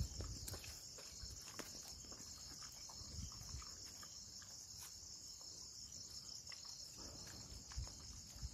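Crickets chirring steadily, a high, even, finely pulsing trill, faint under scattered low thuds and small clicks of footsteps and phone handling.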